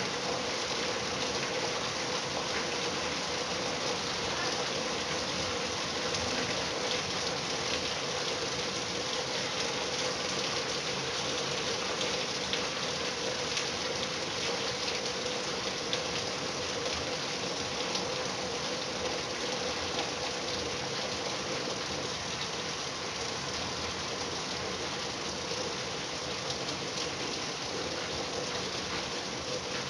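Steady rain falling, an even hiss with scattered drops.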